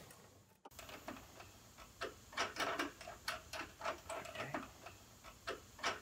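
Irregular light clicks and taps, a few a second, of a wiring harness and its plastic connectors knocking and rubbing against the car body's metal as the harness is fed by hand through the headlight bucket and J-tube. A brief silent gap just after the start.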